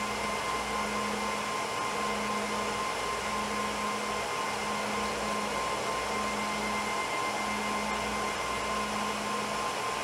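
Steady whir of cooling fans, with a low hum that swells and fades about once a second and a faint high whine.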